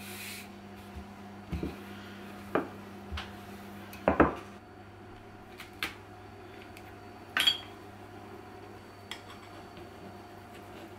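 Fluted metal cookie cutter and a small knife clicking and knocking against a countertop as rounds of cookie dough are cut out and lifted: scattered single knocks, the loudest a double knock about four seconds in and one with a short metallic ring about seven seconds in.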